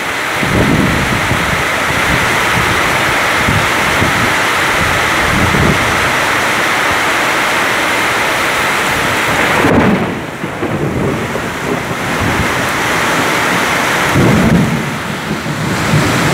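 Heavy rain pouring down in an intense thunderstorm, a dense steady hiss with irregular low rumbles from thunder and gusting wind. The downpour's hiss thins briefly about ten seconds in.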